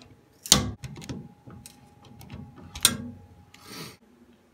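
A screwdriver prying small wooden door supports off a wooden sauna frame: sharp wooden cracks and clicks, the loudest about half a second in and another near three seconds, with a brief rustle shortly before the end.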